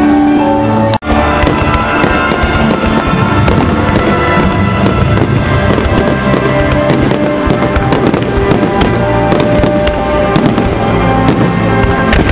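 Fireworks bursting in quick succession over music. The sound cuts out for an instant about a second in.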